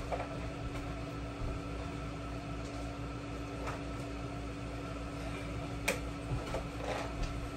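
Steady hum of a running kitchen appliance, with a few faint knocks and one sharp click about six seconds in.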